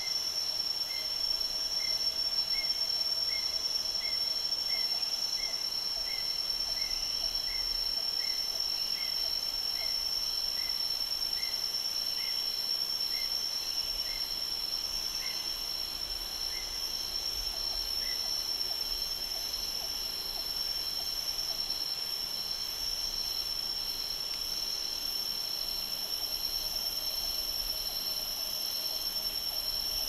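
Tropical forest insect chorus: a steady high-pitched drone with a fainter shrill band above it. A short chirp repeats about twice a second over the first half, slows, and stops about eighteen seconds in.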